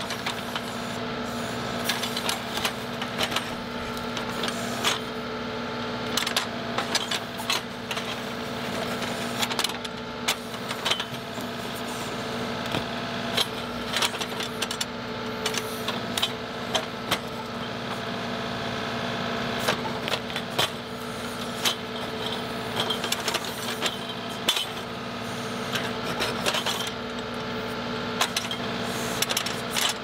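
John Deere 2038R compact tractor's three-cylinder diesel running steadily under backhoe work, while the ripper tooth tears at a stump. Frequent sharp cracks and snaps come through over the engine as solid, live roots rip and break.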